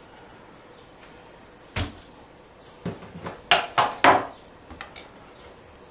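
Sharp knocks and taps from handling herring and a knife on a wooden cutting board: a single knock about two seconds in, then a quick run of louder knocks between about three and four seconds, and a few faint taps after.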